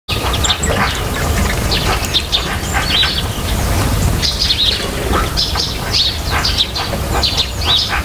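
A busy chorus of small songbirds chirping, many short calls overlapping, over a steady low rumble.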